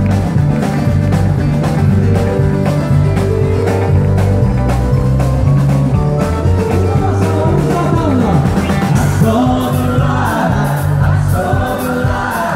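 Live country band playing: acoustic guitars, bass and drums under a lead electric guitar solo with bent notes, and singing voices come in near the end.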